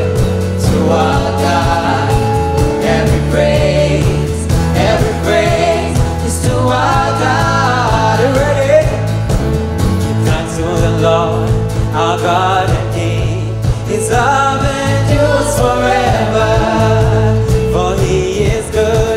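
Gospel worship song: singing over instrumental backing with sustained bass notes and a steady beat.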